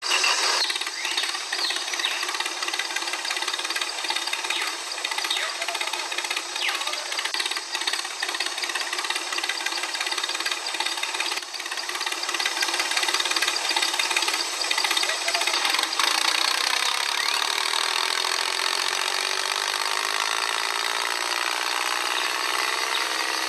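Small electric motor and plastic gears of a toy tractor running with a continuous rattling whir. Over the last few seconds the pitch sinks slowly as the tractor labours in mud.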